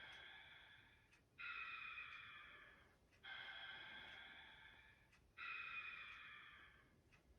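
Heathkit HERO 2000 robot's synthesized snoring: faint, breathy hissing snores about every two seconds, each starting suddenly and fading away.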